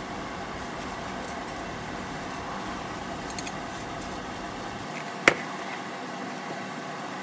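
A steady kitchen appliance hum, with one sharp clink about five seconds in as the ceramic plate, fork and metal skewer are handled on the cutting board.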